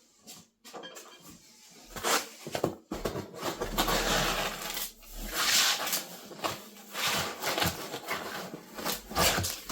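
Packaging being handled as 3D printer parts are unpacked: irregular rustling with hard parts clicking and knocking against each other.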